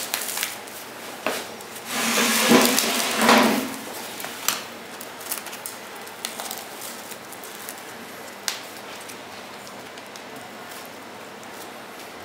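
Crusty bread torn apart by hand, a crackling rustle for about a second and a half starting about two seconds in, followed by a few light clicks and taps.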